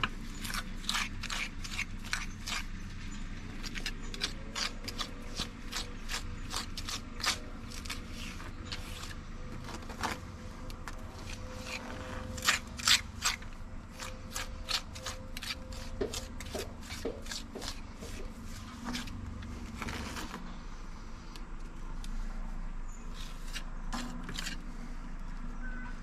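Steel tuck-pointing tool and trowel scraping mortar into the joints of a concrete block wall: a run of short, irregular scrapes, busier for most of the stretch and sparser near the end.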